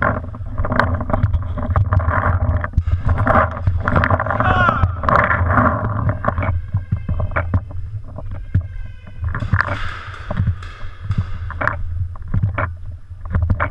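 Rumbling handling and wind noise on a GoPro mounted on a paintball gun, with muffled shouting voices and scattered sharp knocks.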